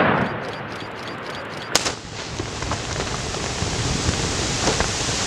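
Volcanic eruption: a steady rushing noise, with one sharp crack about two seconds in and fainter ticks after it.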